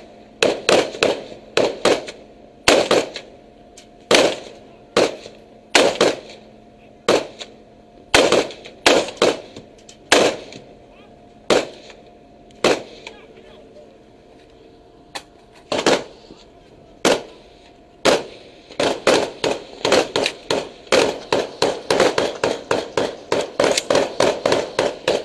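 Rifle fire from the ship's deck: single shots spaced about a second apart, with a pause of a few seconds in the middle, then faster shooting at two to three shots a second for the last several seconds.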